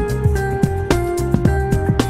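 Background music with a steady beat and long held melody notes.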